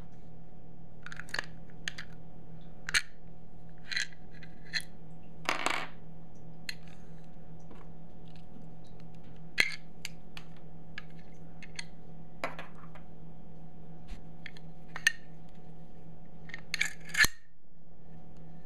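Scattered light metallic clicks and clinks from a Denix non-firing replica Volcanic repeating pistol, zinc alloy with a brass finish, being handled and turned in the hands, with a short scrape about six seconds in.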